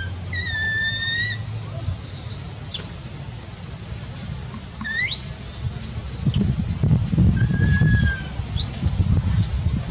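Baby macaque's high-pitched cries for its lost mother: one held call about half a second in, then thin cries that sweep sharply upward in the middle and again near the end. A low rumble comes in under them in the second half.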